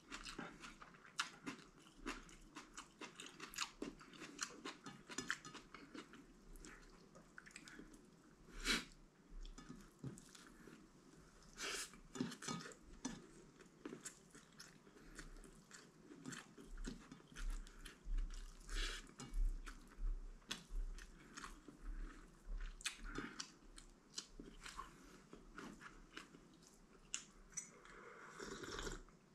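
A person chewing and biting crunchy food, with many small irregular crunches and clicks.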